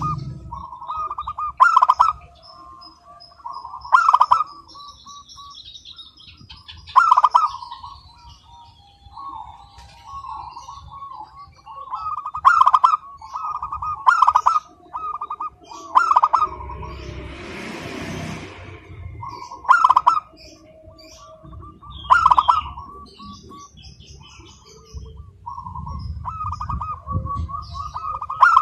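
Zebra dove (local perkutut) cooing over and over, each call a quick run of staccato notes, repeated about every two seconds. Faint chirps of small birds sound behind it.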